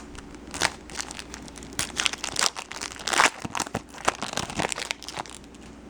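Foil card-pack wrapper being torn open and crinkled in the hands: a run of sharp crackles, the loudest about three seconds in.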